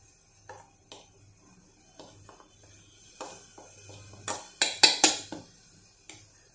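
A steel spoon scraping and clinking against stainless steel bowls as flour is scooped from one into the other, with a cluster of sharp taps, the loudest, about four to five seconds in.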